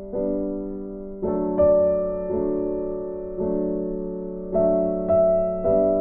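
Gentle piano music: soft chords struck about once a second, each ringing on and fading before the next.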